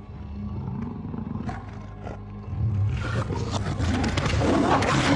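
A large animal's low growling roar that starts about halfway in and keeps growing louder.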